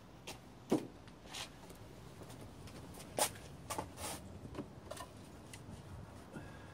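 Irregular light clicks and clinks of metal parts and tools being handled in a car's engine bay as gloved hands work at the exhaust manifold. A duller knock comes about a second in and a sharp click about three seconds in.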